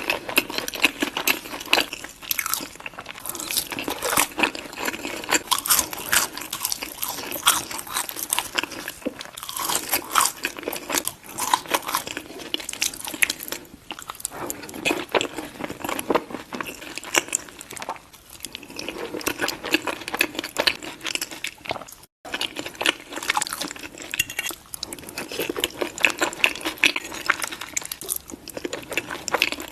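Close-miked chewing and biting of chili cheese baked fries: a continuous run of irregular crunching and mouth clicks, with a brief break in the sound about two-thirds through.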